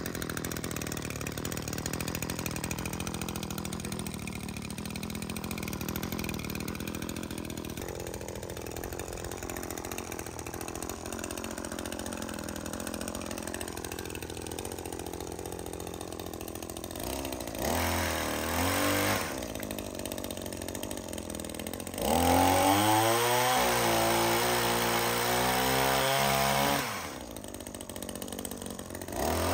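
Echo PPT-2620 pole saw's 25cc two-stroke engine running, mostly idling with a wavering pitch. It is revved briefly a little past halfway, then held at high revs for about five seconds before dropping back to idle. It revs up again near the end.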